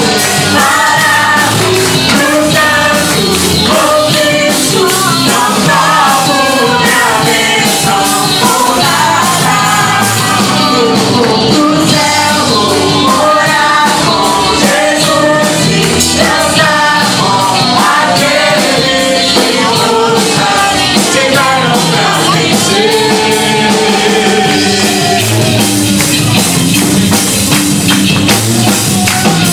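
Worship song played by a band, with a singer's voice carrying a melody over it.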